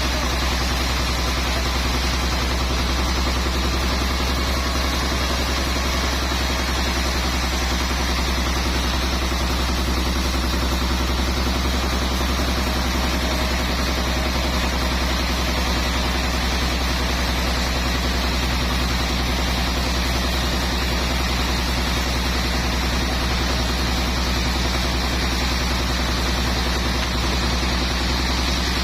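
Sawmill engine running steadily: a constant low drone that holds at one pitch without rising or falling under load.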